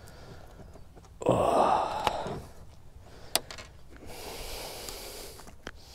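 A man's heavy breathy exhale about a second in, then a sharp click and a couple of seconds of rustling as the landing net holding the fish is handled, with another click near the end.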